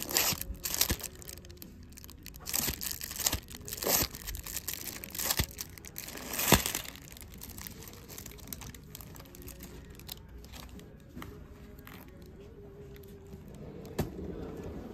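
Bagged comic books being flipped through by hand in a wooden bin: the plastic sleeves crinkle and the boarded comics slap and click against each other. The flipping is busiest in the first seven seconds or so, then turns sparser and quieter.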